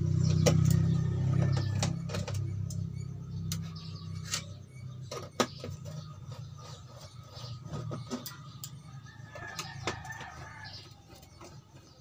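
Scattered clicks and knocks of hands pulling the speakers and cables off an opened LED TV's metal chassis and plastic back. A low steady hum is loudest at the start and fades over the first few seconds.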